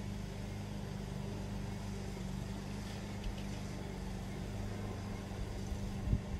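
Steady low mechanical hum in the background, with a soft low thump near the end.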